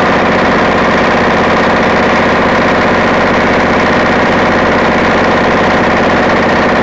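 A vehicle engine idling steadily close by: an even, rapid running beat that holds at one speed throughout.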